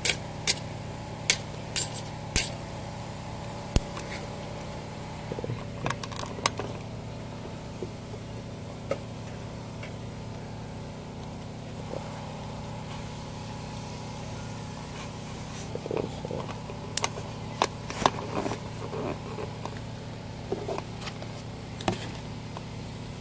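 Footsteps and sharp clicks of someone walking across a campsite, most of them in the first couple of seconds, over a steady engine-like hum. More scattered clicks and clinks come near the end.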